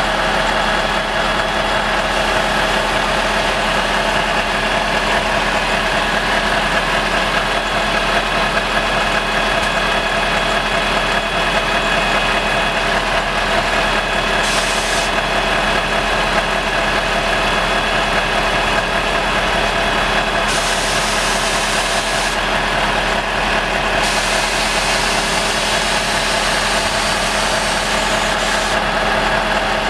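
Volvo FM tipper truck's diesel engine idling steadily at an even, unchanging speed.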